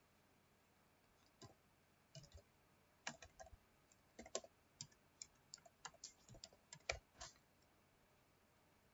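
A few scattered clicks, then a quick run of computer keyboard keystrokes lasting about four seconds as a short line of text is typed, stopping shortly before the end.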